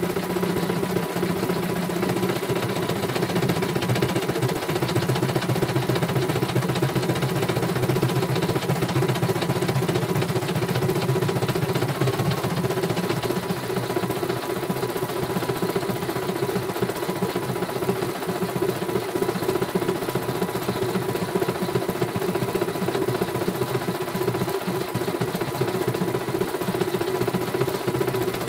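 CNY portable computerized embroidery machine stitching a design, the needle running in a fast, steady rattling rhythm as the embroidery hoop is driven under it.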